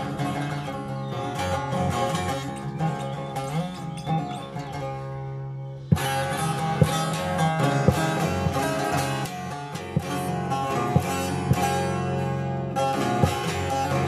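Divan saz, a large long-necked Turkish lute with a carved bowl, played solo with a plectrum: quick picked and strummed notes over ringing drone strings. The playing softens about four seconds in, then a sharp stroke at about six seconds brings it back full.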